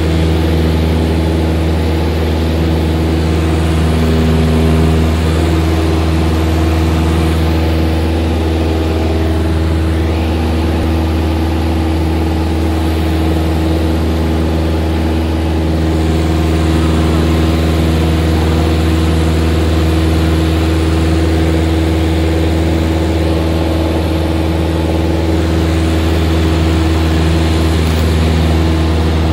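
Steady drone of a small high-wing light aircraft's engine and propeller, heard from inside the cabin, holding even power in flight.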